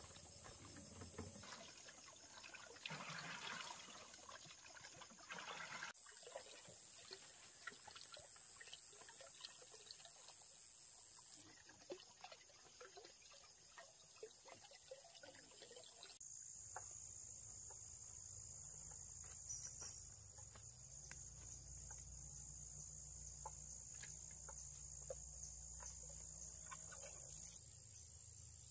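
Faint, steady, high-pitched insect chirring with scattered small clicks. A low hum comes in about halfway through.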